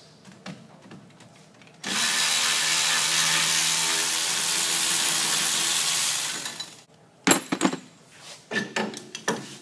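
A handheld cordless power tool runs steadily for about four and a half seconds, loosening a bolt to take the upper A-arm off a RZR, then winds down. A few sharp metal clanks and clicks follow near the end.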